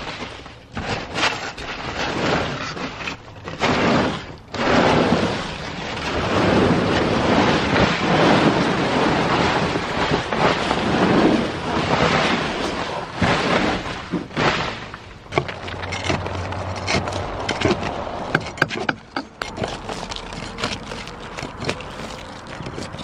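Torn-off asphalt shingle debris scraping and sliding over bare roof boards as the pile is pushed down the roof, in rough stretches of a second or two. Later it turns to scattered sharp clatters and knocks of loose shingle pieces.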